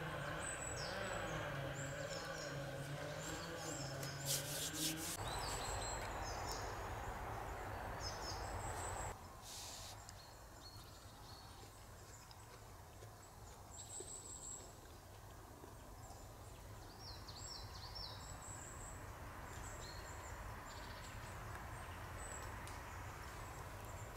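Woodland ambience: small birds chirping now and then over a faint steady hiss. In the first nine seconds there is louder rubbing and handling noise and a low tone that shifts in pitch, which stop suddenly about nine seconds in.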